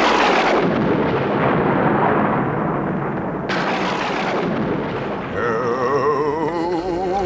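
A loud, noisy rumble like a thunderclap, starting suddenly and slowly dying away over about five seconds. Then a wavering, warbling tone glides down and wobbles steadily near the end.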